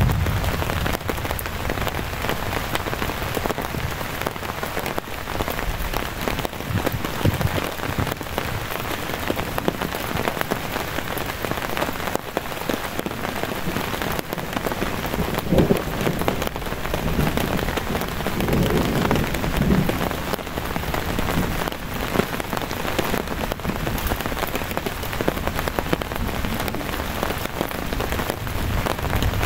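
Steady heavy rain falling, an even hiss of raindrops on leaves, ground and tarp.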